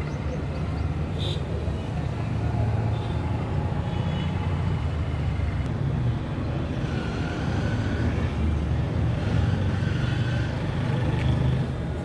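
Steady low outdoor rumble, a little louder in the second half. A few faint high chirps of small birds come through in the first few seconds.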